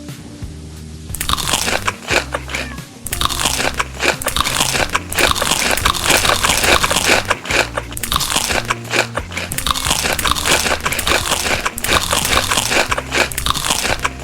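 Rapid, loud crunching of crisp food being bitten and chewed, starting about a second in, over background music with a steady low bass line.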